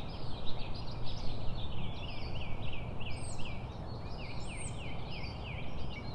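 A dense chorus of small birds chirping, many short calls overlapping and sweeping down and back up in pitch, over a low steady background rumble.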